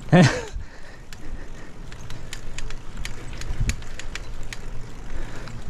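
Touring bicycle being ridden, with a low steady hum and scattered sharp ticks and rattles throughout.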